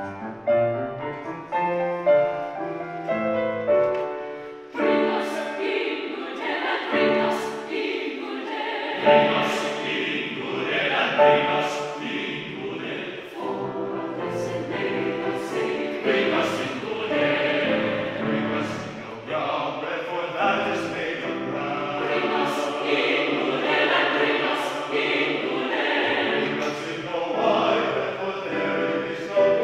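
Grand piano plays alone, then a choir comes in singing about five seconds in, with the piano accompanying; crisp 's' consonants of the sung words stand out every second or two.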